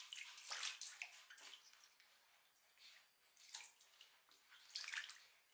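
Faint splashing of water in a plastic basin, in irregular short bursts, as a baby monkey is washed by hand; the loudest splash comes near the end.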